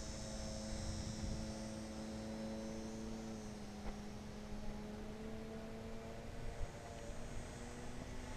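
Electric motor and propeller of a TechOne Air Titan RC plane flying at a distance: a steady tone that slowly sinks in pitch over several seconds.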